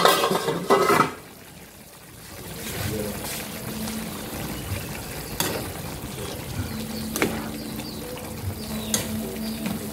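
A frying pan of chicken liver, pork and chayote simmering in its sauce on a gas stove, bubbling steadily, with a few sharp clicks of a metal spoon against the pan. A short burst of louder noise comes in the first second, then a lull before the bubbling sets in.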